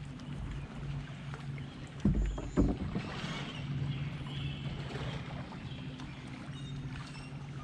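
Sounds aboard a kayak on the water: a steady low hum under a light hiss, broken by two heavy low thumps about half a second apart, a couple of seconds in.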